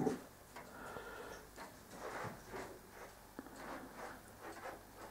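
Faint, steady ticking of a large triple-chime grandfather clock's pendulum escapement, about two ticks a second.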